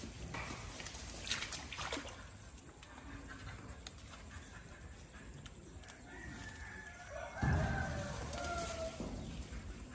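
A rooster crowing once, a single call lasting about three seconds in the second half, over the light trickle of water running from a pipe into a pond.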